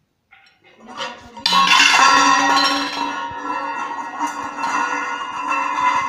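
Stainless steel bowl clattering onto a hard floor about a second and a half in, then wobbling and ringing on its rim with a steady metallic ring for several seconds.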